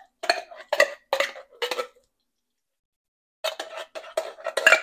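Metal food can of chili with beans knocked against the rim of a stainless steel skillet to shake the contents out: four clinking knocks about half a second apart, a short pause, then a quicker run of knocks.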